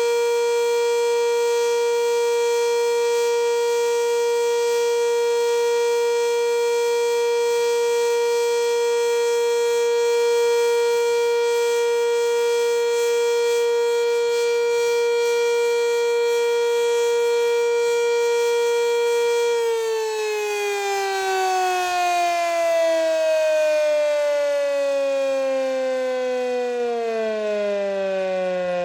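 Sentry 3V8 outdoor warning siren sounding a steady, loud tone. About twenty seconds in it begins to wind down, its pitch sliding steadily lower.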